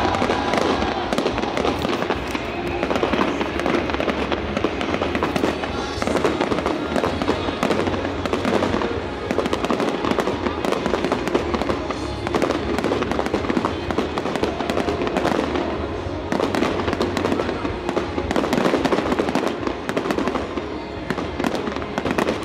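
Fireworks display going off continuously: a dense, irregular crackle of many sharp pops and bangs.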